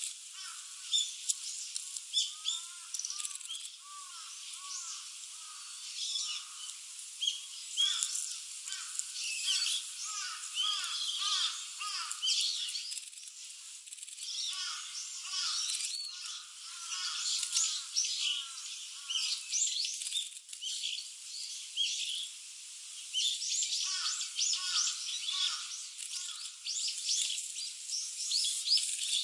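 Several small songbirds calling together: a steady mix of thin, high chirps over clusters of quick, repeated, curved lower notes, with a brief lull about two-thirds through.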